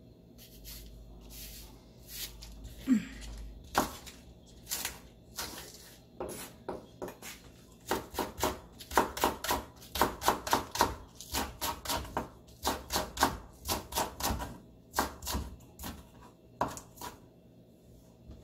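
Chef's knife chopping green onion on a bamboo cutting board: quick runs of sharp knife strikes, several a second, broken by short pauses, after a few scattered knocks at the start.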